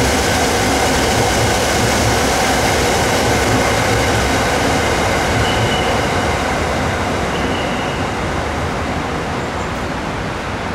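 Train running on the rails: a steady rumble and rail noise that eases off a little near the end, with two short, faint high wheel squeals around six and eight seconds in.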